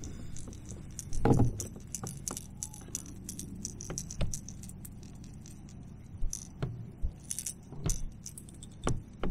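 Rattling and clicking of a crankbait's treble hooks and fishing tackle, handled while a small bass is unhooked in a kayak. Irregular light clicks run throughout, with a louder knock about a second in.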